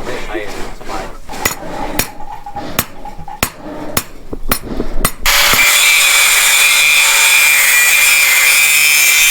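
A hammer striking a knife blank of heated rebar on an anvil, about eight blows roughly half a second apart. About five seconds in, an electric grinder starts abruptly and runs loud and steady, with a high whine, as the blade is ground.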